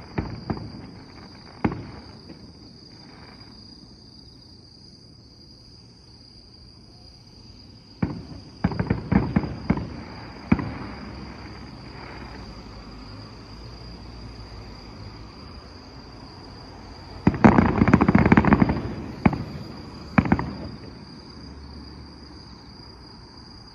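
Fireworks going off. There are scattered sharp bangs at first, a cluster of bangs about eight to ten seconds in, and a dense, loudest run of bangs about eighteen seconds in.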